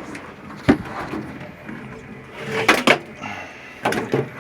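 Sharp clicks and knocks of washing-machine parts and hand tools being handled during reassembly: one sharp click about two-thirds of a second in, a quick pair of knocks a little before three seconds, then more knocks near the end, with a brief high steady whine just before them.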